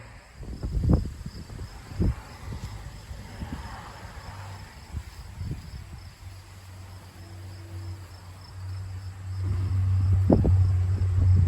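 Crickets chirping steadily in the background, with a few low thumps early on and a low rumble that builds and is loudest near the end.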